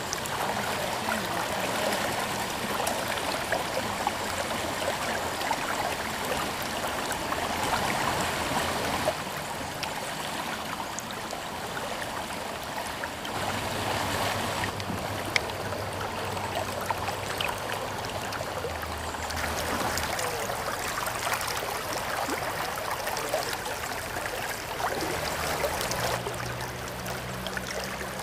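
River water flowing steadily over a shallow, rippled stretch of current.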